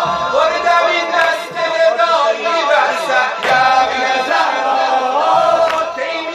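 A group of men chanting a mourning lament (latmiya) together, with low thumps every few seconds.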